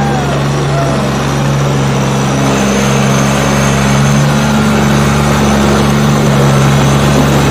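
Ford farm tractor's diesel engine running steadily under load as it hauls a heavily laden sugarcane trolley past, getting a little louder as it approaches.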